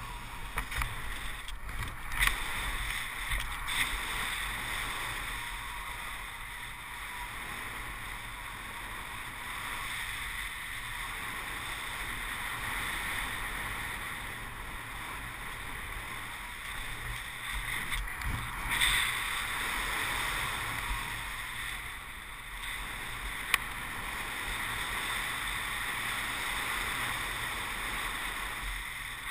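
Wind from a paraglider's flight rushing over the harness camera's microphone: a steady whoosh that swells and eases, with a low rumble beneath and a few sharp clicks.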